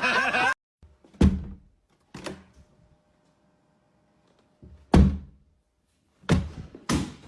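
A loud voice or bleating sound cuts off abruptly about half a second in, followed by six dull thumps at irregular intervals, the loudest about a second in and about five seconds in.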